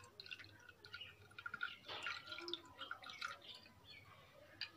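Milk being poured from a bowl over cut fruit in a glass serving dish: faint, light splashing and dripping.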